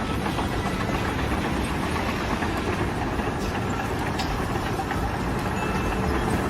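Machinery running steadily, a dense, loud mechanical noise with a heavy low rumble.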